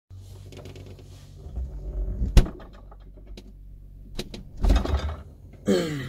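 Handling knocks, clicks and rustles as a camera is set in place on a fridge shelf, with one sharp knock about two and a half seconds in, over a steady low hum. Near the end a short sound falls in pitch.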